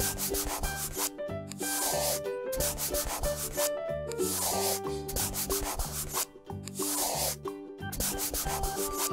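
Instrumental children's background music with a melody over a bassline, and a scratchy rubbing noise that comes back about every two and a half seconds.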